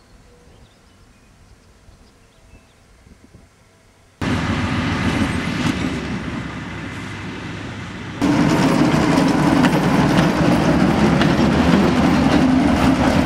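Faint outdoor background, then the heavy rumble of a narrow-gauge diesel locomotive running on the track sets in abruptly about four seconds in. It grows louder in a sudden step about eight seconds in.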